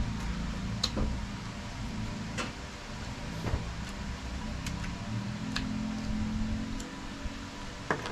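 Close-up eating sounds of oysters: scattered small clicks of oyster shells knocking against each other and the foil tray as meat is picked out, over chewing and mouth sounds.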